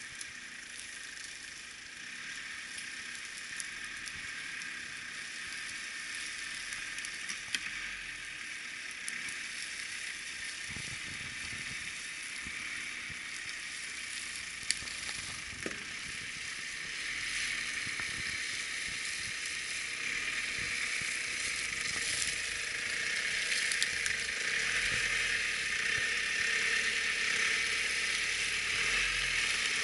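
Mitsubishi Outlander SUV creeping off-road across a slope of dry leaf litter, its engine running and tyres crackling over leaves and twigs, with a few sharp snaps. The noise grows steadily louder as it comes close.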